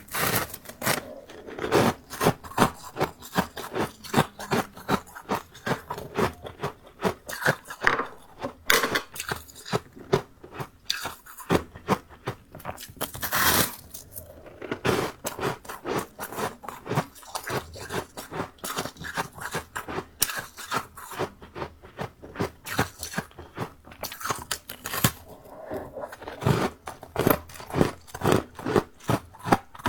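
Close-miked biting and chewing of powdery freezer frost, a fast, irregular run of crisp crunches with a few longer scraping crunches.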